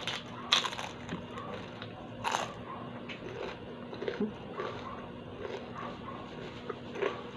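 Crispy battered fried kangkong (water spinach) leaves crunching as they are bitten and chewed: two loud crunches about half a second and two seconds in, then steady crunchy chewing at about two chews a second.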